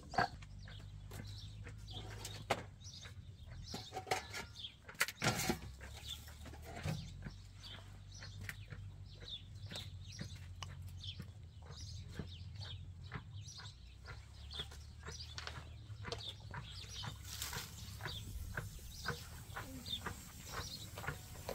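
Village yard sounds: chickens clucking and small birds chirping, over many short clicks and knocks and a steady low hum.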